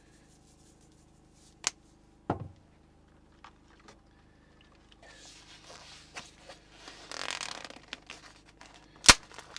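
Plastic-wrapped tray of chicken thighs being handled: the film and tray crinkle and rustle through the second half, with one sharp plastic click near the end. Earlier come a few light taps and clicks from seasoning and a fork stirring in a plastic container.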